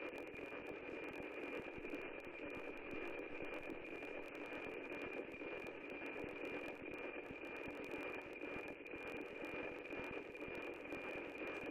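NOAA-18 weather-satellite APT signal as heard from the receiver: a steady high tone over a hiss. It is the audio subcarrier that carries the satellite's image lines, being recorded as a picture.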